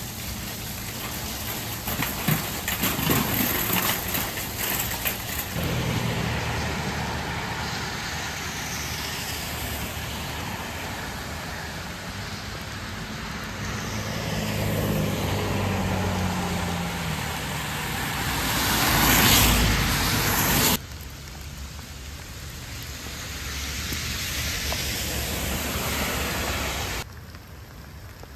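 Steady rain with cars driving on the wet road, tyres hissing through the water. One vehicle swells up and passes loudly about nineteen seconds in, then the sound cuts suddenly to quieter, steady rain.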